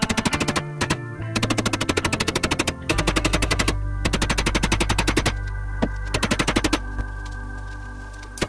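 Hip-hop backing music: bursts of rapid stuttering drum hits, about a dozen a second, over steady held tones, with a low bass note coming in about three seconds in.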